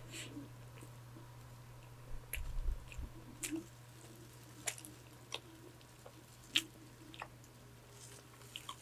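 Close-miked chewing and soft wet mouth sounds of someone eating a donut, with scattered sharp clicks and a low thump about two and a half seconds in. A steady low hum from an electric fan runs underneath.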